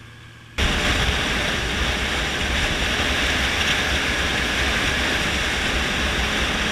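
Loud steady wind rush on a helmet-mounted camera, with the 2014 Honda CBR650F's inline-four engine rumbling underneath at highway speed. It starts abruptly about half a second in.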